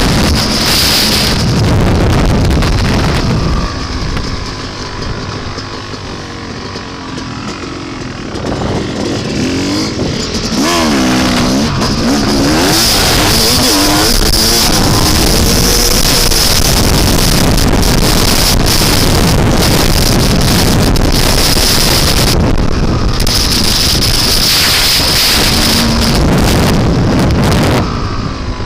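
Dirt bike engine running and revving up and down under heavy wind buffeting on the microphone. The wind eases for a few seconds about four seconds in, and the engine pitch is heard clearly rising and falling around ten seconds in before the wind noise swamps it again.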